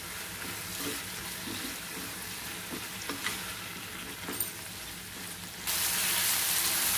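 Brinjal pieces frying in hot oil in a pan, sizzling steadily while being stirred, with scattered light knocks and scrapes. About five and a half seconds in, the sizzle abruptly becomes louder.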